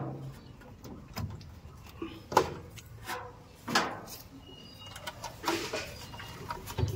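Thick insulated cables being handled and pushed into an electricity meter's terminal block inside a plastic meter box: scattered light knocks and rustles, with two sharper knocks about two and a half and four seconds in.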